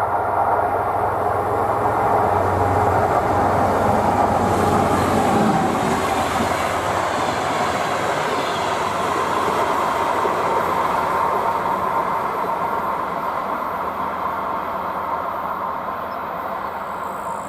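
DR1AM diesel multiple unit passing at speed: a loud, steady rushing rumble of wheels on rail that peaks about five seconds in and then slowly fades. A low engine hum is heard early and dies away around six seconds in.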